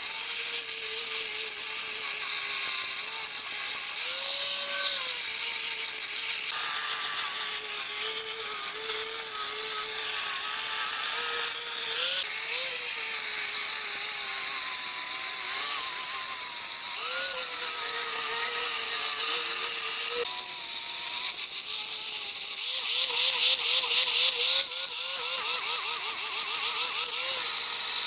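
Chainsaw running at high speed and cutting wood, its pitch dipping and recovering again and again as the chain bites, over a steady hiss.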